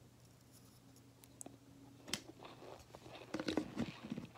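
Close-up crunching and chewing of a baked cornstarch chunk, starting with a sharp click about two seconds in and growing into a cluster of crisp crunches near the end.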